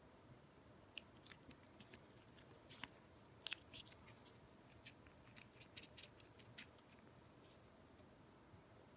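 Faint, scattered crinkling ticks of a plastic CIAO Churu cat-treat tube being handled and squeezed in the fingers, clustered through the middle few seconds.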